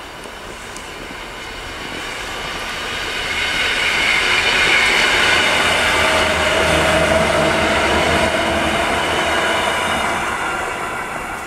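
EN57AL electric multiple unit pulling out and passing, its motors and wheels growing louder for a few seconds, then easing off near the end. A steady whine sits over the rail noise.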